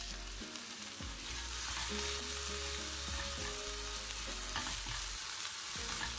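Chopped onions sizzling in hot oil in a non-stick frying pan as they are sautéed, stirred with a spatula that scrapes the pan a few times.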